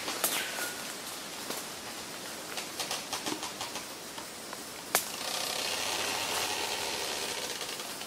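Humid tropical forest ambience with bird calls: several runs of rapid ticking or rattling, a single sharp crack about five seconds in, then a steady hiss for a couple of seconds.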